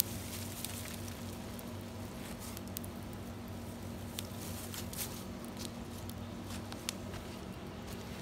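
Wood fire crackling in a hobo stove, with scattered small snaps and pops over a steady low hum.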